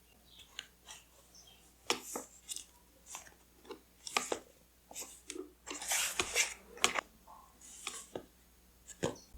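Paper and washi tape being handled for journaling: irregular crinkles, rustles and small clicks, with a longer crinkly stretch about six seconds in.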